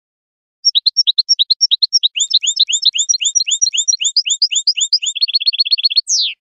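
European goldfinch singing: a run of quick, high, twittering notes, about six a second, that speeds into a fast trill near the end and closes with one falling note.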